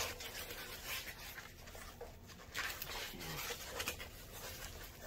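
Rustling and scraping of a foam packing sheet against a cardboard box as a wrapped part is lifted out, with small taps and a denser rustle about two and a half seconds in.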